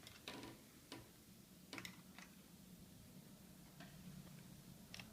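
Faint, scattered small clicks and taps, about six in all, from handling the small metal parts of the SSD's mounting bracket inside the laptop, over a low steady hum.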